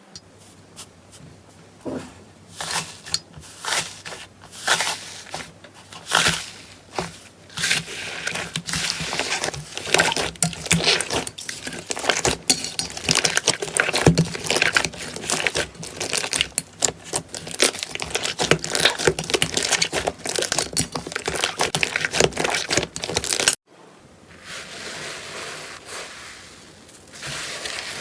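Slime being pressed and worked, making crackling, popping clicks that grow dense and fast. Near the end it cuts suddenly to a softer, quieter squishing.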